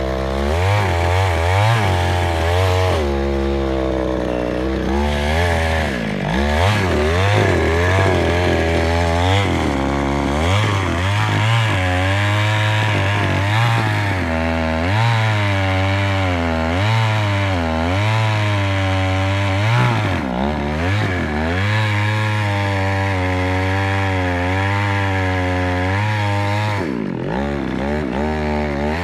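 Chainsaw running hard without a break, its engine pitch repeatedly dipping under load and climbing back, as when cutting through wood.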